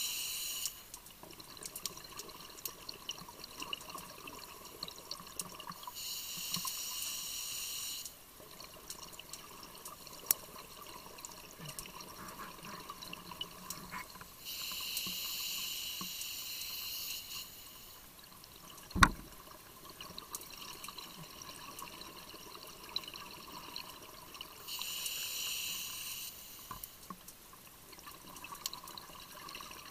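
Scuba diver breathing underwater: the regulator's exhaled bubbles come as hissing bursts of one to three seconds, four times at about nine-second intervals. Faint crackling clicks fill the gaps, with one sharp click about 19 seconds in.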